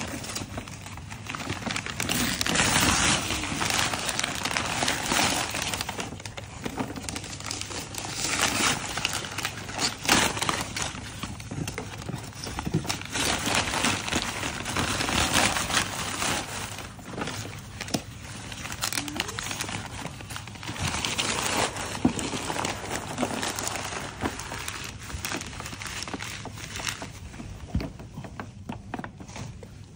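Gift wrapping paper crinkling, crumpling and tearing in repeated bursts as a present is unwrapped.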